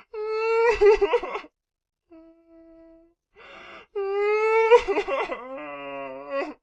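A teenage boy crying: two long wailing cries, each begun with a sharp gasping inhale, the second breaking into a lower, shaky, quavering sob near the end.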